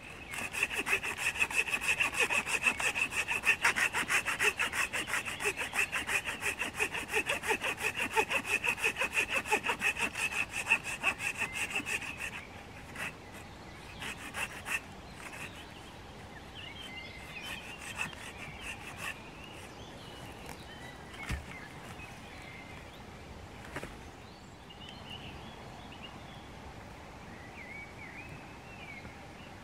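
Hand saw cutting through wood with rapid, even back-and-forth strokes for about twelve seconds, then stopping. A few light knocks and faint high chirps follow.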